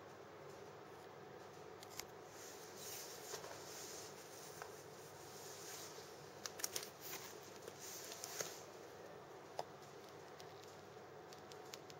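Faint steady background hiss with scattered soft clicks and a few brief rustles, the busiest stretch about six to eight seconds in; no howl or bark.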